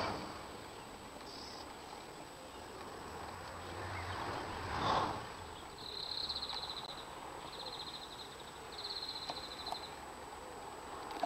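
Countryside ambience with a bird singing a fast trill several times, short phrases from about six seconds in, over a low background rumble. One brief louder sound about five seconds in.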